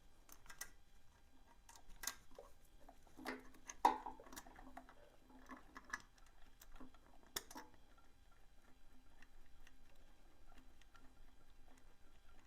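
Light metal clicks and scrapes as a valve adjustment cap is fitted and tightened on a 1978 Kawasaki KL250's cylinder head, with one louder knock about four seconds in. After that there is only faint, regular ticking.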